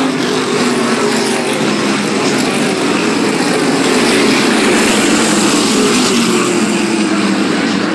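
Pack of 600-horsepower modified race cars running flat out past the grandstand, several V8 engines at once, with engine notes dropping in pitch as cars go by.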